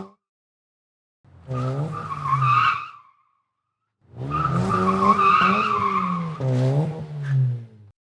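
Car engine revving with tires squealing, in two bursts, the first about two seconds long and the second about four. Each cuts off abruptly to silence.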